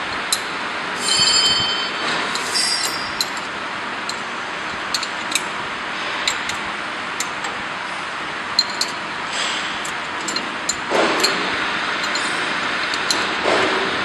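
Steady mechanical noise with scattered sharp metallic clinks and taps, and a brief metallic ring about a second in.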